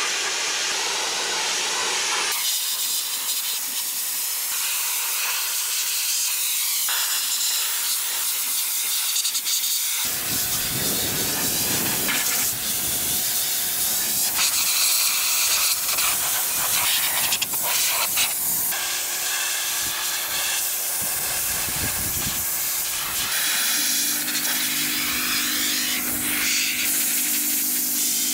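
Steady, loud hiss of a compressed-air tool spraying or blasting on the refrigerator's sheet metal, changing abruptly several times as separate stretches of the work follow one another.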